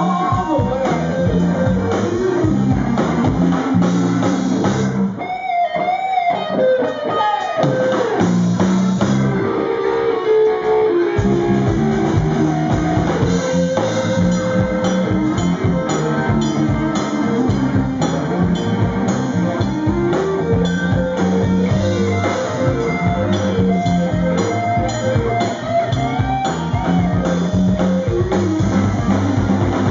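Live blues-rock band playing an instrumental passage: electric guitar lead over bass guitar and drum kit. About five seconds in, the drums and bass drop out and the guitar plays bending notes on its own. The full band comes back in about eleven seconds in.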